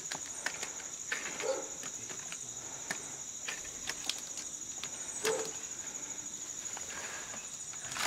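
Vinyl siding pieces clicking and rustling against each other and their cardboard carton as they are handled and pulled out, with short rustles about 1.5 s and 5 s in. Behind it runs a steady high-pitched trill of crickets.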